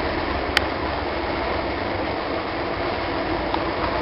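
2003 Honda Varadero 125's small V-twin engine running steadily at idle through its stock exhaust.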